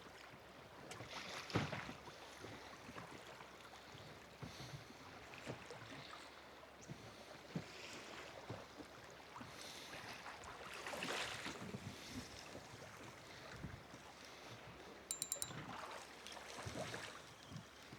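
Faint water slapping and sloshing against a small boat's hull in a swell, with wind on the microphone. A few light knocks come through, and a short run of sharp clicks about three-quarters of the way through.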